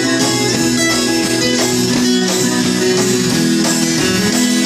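A live band playing an instrumental passage: acoustic guitar with drums and cymbals keeping a steady beat, without singing.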